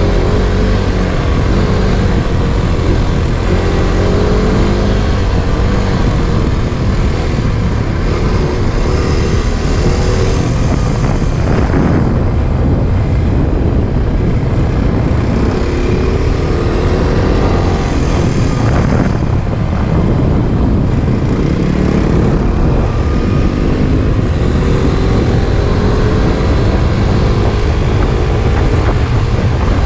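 Off-road motorcycle engine running steadily as the bike is ridden. Its pitch rises and falls with the throttle under a heavy rushing noise.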